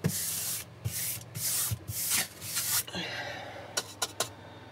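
Stiff paintbrush swept across a flat varnished board: about five brushy swishes in the first three seconds, then a few sharp ticks near the end.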